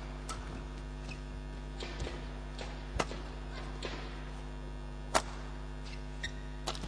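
Badminton rally: rackets striking the shuttlecock about once a second, short sharp hits, the loudest about five seconds in, over a steady electrical hum.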